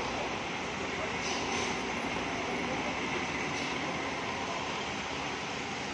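Steady noise of cars driving slowly through a wet hairpin bend in the rain: engines running and tyres hissing on wet asphalt, mixed with falling rain.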